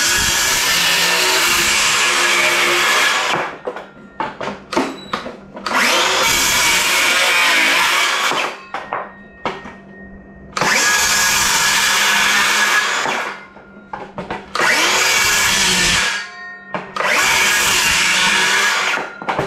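DeWalt DCS391 20V Max cordless 6-1/2-inch circular saw cutting through a wooden board five times. Each cut lasts two to three seconds and starts and stops sharply, with short clicks and knocks of wood between the cuts.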